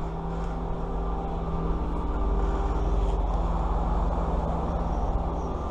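An engine running steadily with a constant low hum and rumble, its pitch unchanging.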